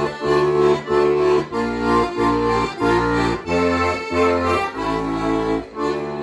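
Heligonka, a Slovak diatonic button accordion built by Anton Dvorščík, playing a tune with full chords over bass notes in a steady, even beat of a little under two strokes a second.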